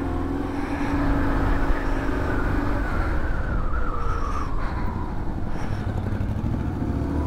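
BMW GS motorcycle engine pulling steadily in first gear up a tight mountain hairpin, with wind rumble on the microphone; the engine note eases down slightly midway through.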